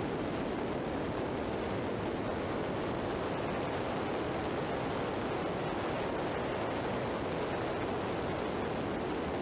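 Steady rush of wind and road noise on a motorcycle-mounted camera's microphone at highway speed, with no distinct engine note.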